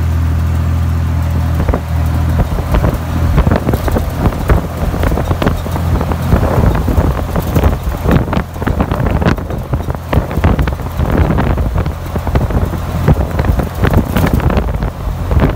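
Wind buffeting the microphone of a flat-fender Jeep driving at road speed, over the steady drone of its engine. The engine drone is clear for about the first two seconds; after that irregular gusts of wind noise take over.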